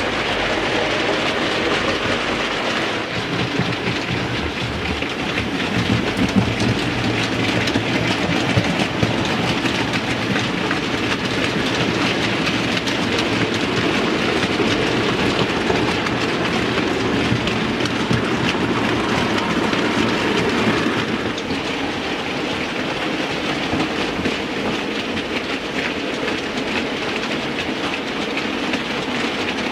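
OO gauge model goods train running, its wagon wheels making a steady, rapid clickety-clack on the track.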